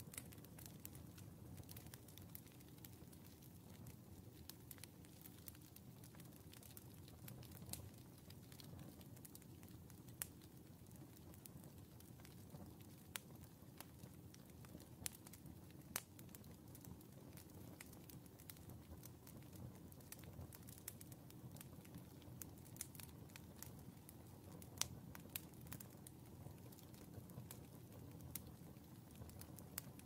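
Firewood burning in a stove's open firebox: faint crackling with scattered sharp pops, a few of them louder, over a low steady rumble.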